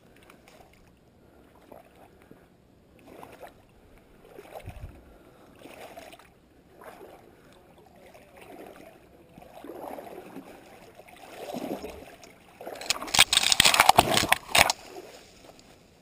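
Footsteps through shallow swamp water and brush: irregular sloshing and rustling, with a loud burst of splashing and brush scraping for about two seconds near the end.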